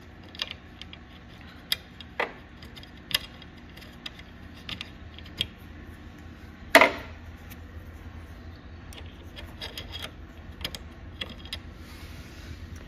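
Scattered light metal clicks and clinks as a chainring bolt on a Wahoo KICKR Bike's crank is turned out and lifted free, with one sharper, louder clink about seven seconds in.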